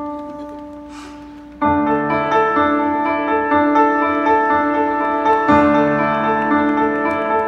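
Piano or electric keyboard playing a slow song intro: a single held note fading away, then full sustained chords from about a second and a half in.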